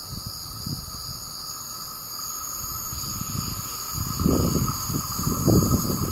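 Wind buffeting the microphone in irregular low gusts that pick up about four seconds in, over a steady high-pitched ringing in several tones.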